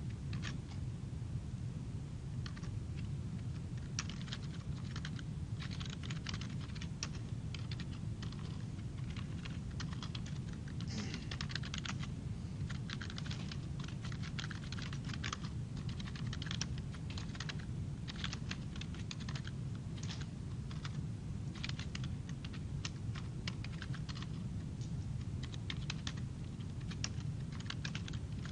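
Typing on a computer keyboard: runs of quick keystrokes with short pauses between them, over a steady low hum.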